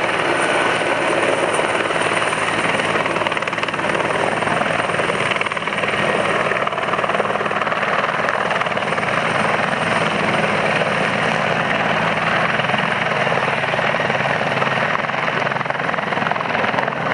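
Helicopter hovering, its rotor and turbine running with a steady, unbroken noise.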